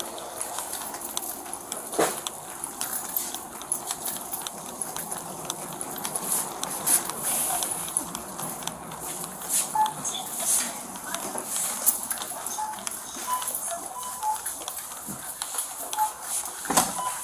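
Footsteps on a hard store floor heard through a chest-worn body camera as its wearer walks, with steady clicks and knocks throughout. Near the end there is a heavier thud as a door is pushed.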